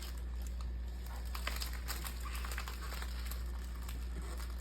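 Printed paper wrapper being folded and handled, with faint crinkling and small ticks of paper, over a steady low hum.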